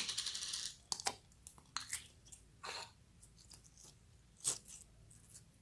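Clear green jelly slime squeezed and worked between the fingers, giving a string of wet crackles and pops. There is a dense burst of crackling at the start and a sharper snap about four and a half seconds in.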